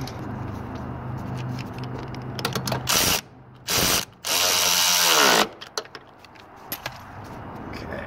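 Power drill with a socket spinning the 13 mm nut onto the bottom of a steel door-hinge pin, in three bursts on the trigger; the last and longest winds down in pitch as the nut runs tight. A few small clicks follow.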